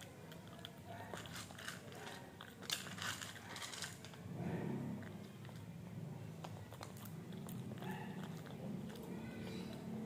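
Small long-haired dog crunching and chewing dry food taken from a hand, with sharp crunches clustered in the first few seconds and softer chewing after.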